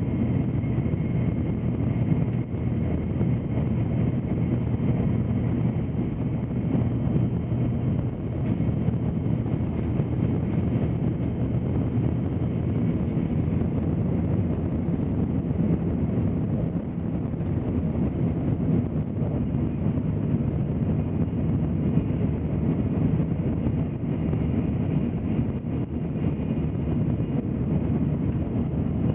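Tokaido Shinkansen train running at speed, heard from inside the passenger car: a steady low rumble of wheels and track with faint high tones above it.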